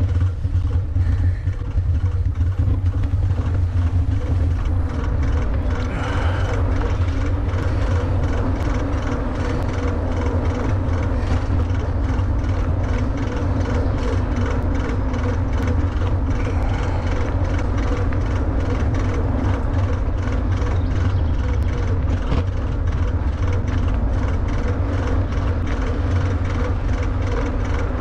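Riding a WALLKE X3 Pro e-bike along a paved path: a steady rush of wind on the microphone and tyre rumble, with a steady motor hum underneath and light rattling ticks.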